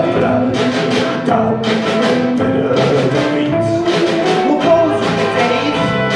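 Live band playing an instrumental passage: held melody notes over acoustic guitar and a steady drum beat.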